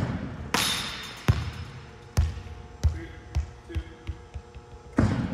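Volleyball hits and bounces on a hardwood gym floor, echoing: a few sharp impacts, then a ball bouncing in quicker, fainter bounces as it settles, and another hard hit near the end.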